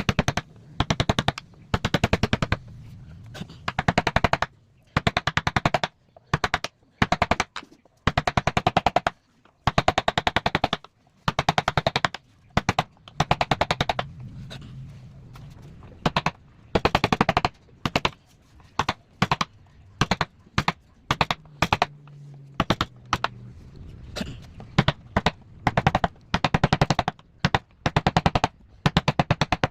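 Wood router machine cutting wood in repeated short bursts of rapid clatter, with the quieter motor hum running in the gaps between bursts.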